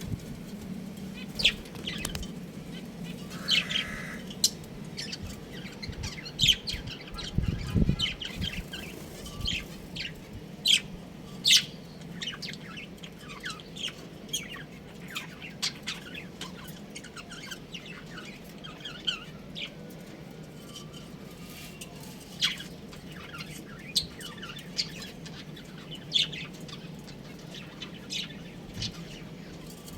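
A flock of budgerigars chirping, with many short, irregular calls, over a steady low hum.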